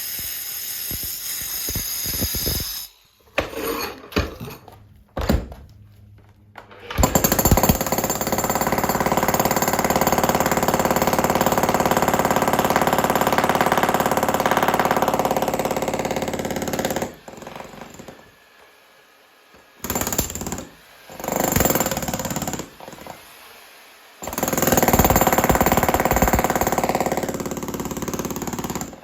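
Electric demolition hammer chipping concrete in start-stop runs, the longest lasting about ten seconds, breaking up the slab around a water meter to dig down to a leaking buried supply pipe.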